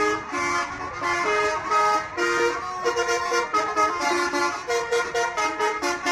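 Bus telolet horn, a multi-tone musical horn, playing a melody of stepped notes, the notes turning short and quick from about three seconds in.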